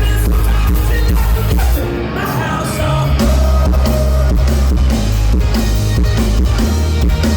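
Loud live rock band playing, with drum kit, heavy bass and electric guitar. The low end drops out briefly about two seconds in, then the full band comes back.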